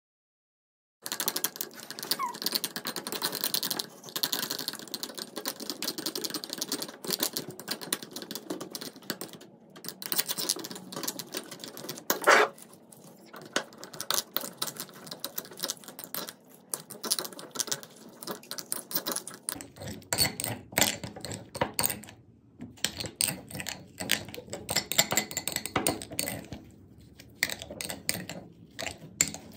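Metal spoon stirring PVA glue in a glass bowl as the borax activator turns it into slime: rapid, irregular clicking of the spoon against the bowl, with one louder clink about twelve seconds in.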